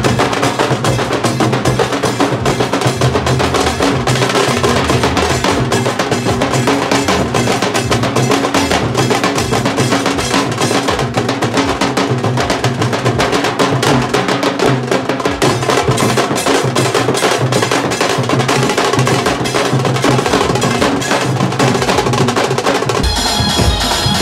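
A street drum troupe beating large double-headed dhol drums with sticks, a loud, fast, dense rhythm of strokes. Near the end the drumming gives way to a band's music, with high held tones over lighter percussion.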